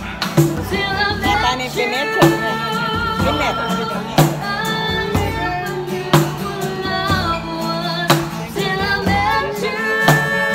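Live music: a woman singing to an acoustic guitar, with sharp percussion strikes about every two seconds.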